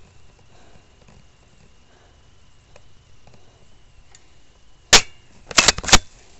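Airsoft shotgun firing: one sharp crack about five seconds in, then three more quick cracks close together about half a second later.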